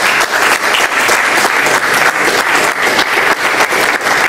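A small group applauding, many hands clapping in a steady, continuous patter.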